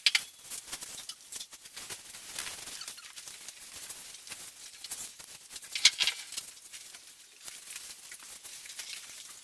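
Futon bedding being laid out on tatami mats: cloth sheets and a duvet rustling as they are spread and smoothed, with light pats and soft steps on the mats. One louder rustle comes about six seconds in.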